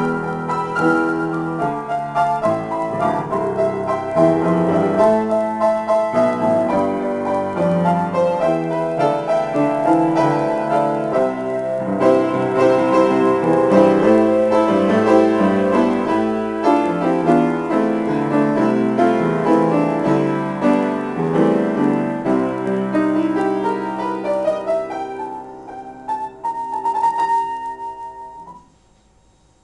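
Solo grand piano playing an improvised piece, which thins out to a few quieter notes and a final held chord, then stops abruptly shortly before the end.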